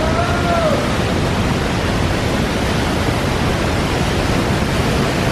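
Steady rushing noise of a waterfall on the Linville River, water pouring over rock close by. A brief rising-and-falling call cuts through it right at the start.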